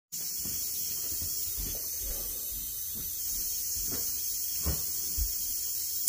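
Steady high-pitched recording hiss, with a few faint low knocks scattered through it.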